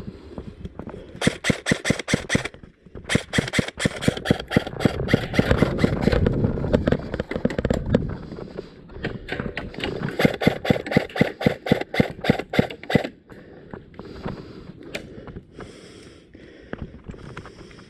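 Airsoft guns firing in long rapid strings of shots, a short burst about a second in, then a long string from about three to eight seconds and another from about ten to thirteen seconds, with scattered single shots after.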